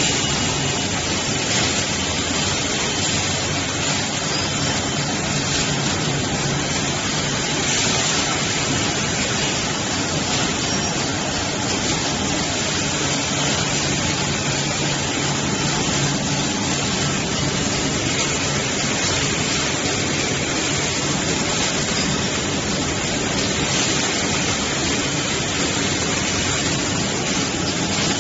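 Kitchen towel roll conveyors and packaging machinery running: a steady, even mechanical noise with a low hum underneath.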